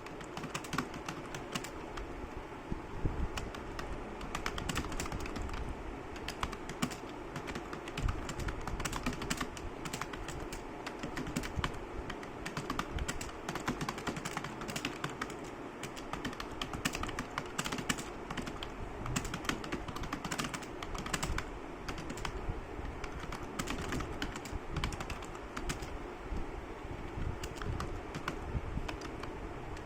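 Fast typing on a computer keyboard: rapid, irregular key clicks without a break.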